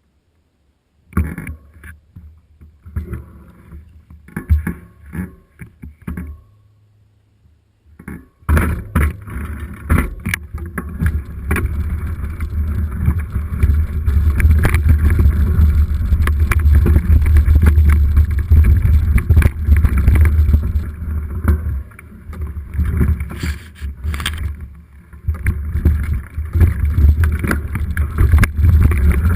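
Mountain bike riding downhill on a rough forest trail, heard through an action camera: scattered rattles and knocks at first, then from about eight seconds in continuous rattling over bumps with heavy wind rumble on the microphone.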